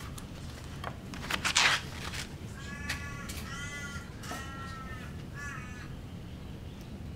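A crow cawing four times between about three and six seconds in, each caw about half a second long. Before that, about a second and a half in, a quick cluster of sharp clicks, the loudest sound.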